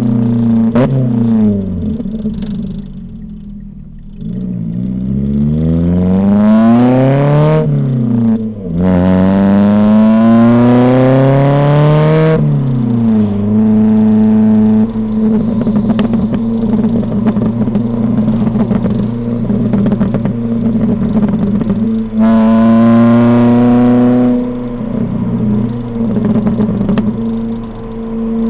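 Ford Fiesta ST150's 2.0-litre four-cylinder engine heard through its modified exhaust from a microphone at the rear of the car. The revs fall off the throttle, then climb hard through two gears with a shift about eight seconds in. After easing off, the engine holds steady cruising revs, then pulls up again briefly.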